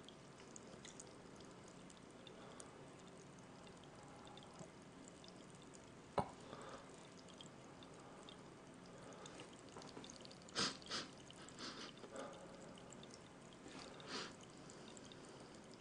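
Faint simmering of a pan of stew on the heat: a low steady hiss with a sharp click about six seconds in and a few small bubbling pops later on. It is the sound of the burner heating the pan, not a gas leak.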